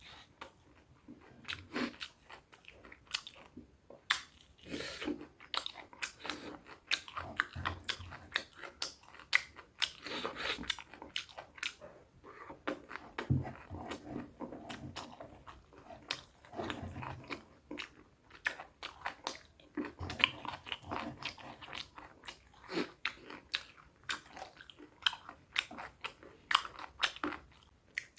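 A person chewing and crunching food close to the microphone: a dense, irregular run of crisp crunches and mouth clicks.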